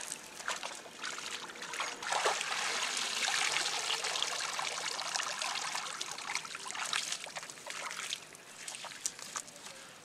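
Water streaming and dripping off a wet cast net as it is hauled out of a pond, with some splashing; it tails off over the last couple of seconds.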